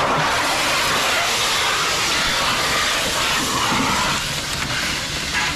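Compressed gas hissing into an inflatable man-overboard rescue unit as it unfolds from its hard case. The hiss starts suddenly, runs steadily and eases slightly near the end.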